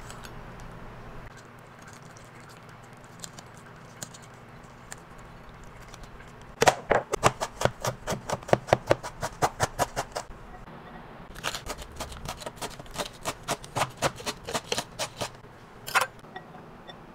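Chef's knife chopping ginger on a plastic cutting board: two quick runs of sharp knocks, about seven a second, the first starting about seven seconds in and the second about eleven seconds in, after a quiet stretch.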